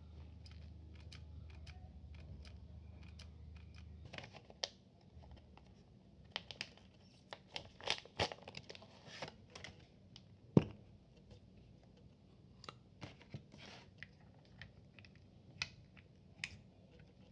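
Foil film wrapper being torn open and crinkled, with one sharp snap about ten seconds in, followed by small clicks and taps as a 35 mm film cartridge is fitted into the Olympus Pen EE3's film chamber. A low steady hum with faint handling clicks fills the first four seconds.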